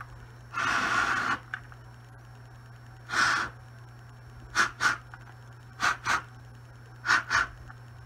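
A person blowing air into a photoelectric smoke detector head to clear out leftover aerosol test smoke. It goes as one long blow, then a shorter one, then three pairs of quick puffs.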